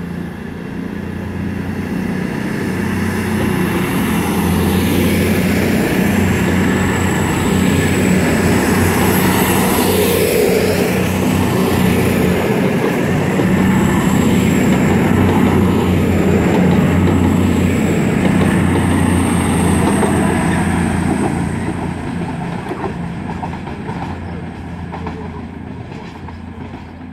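CrossCountry Voyager diesel multiple unit passing along the platform, its underfloor diesel engines running with a steady hum and a thin high whistle. The sound grows over the first few seconds, stays loud while the carriages go by, and fades as the train draws away near the end.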